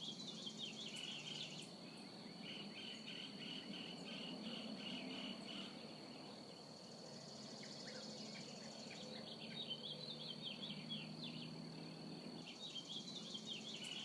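Faint nature ambience: a steady high insect trill, with patches of higher insect buzzing that come and go, and small birds chirping repeatedly.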